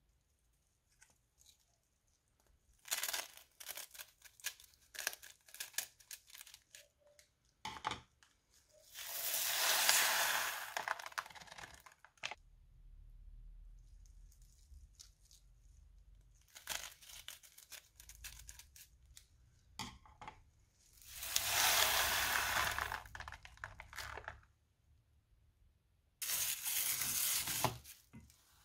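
Seed beads pour out of plastic piping bags onto slime in a bowl, twice, each time a swelling, hissing patter lasting two or three seconds. Between the pours come crinkling and clicking from handling the plastic bags.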